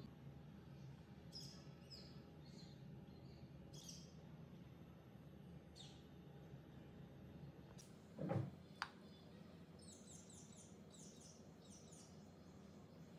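Faint chirps of small birds: scattered single falling chirps, then a quick run of them near the end, over a low steady hum. About two thirds of the way through comes a short thump, followed half a second later by a sharp click.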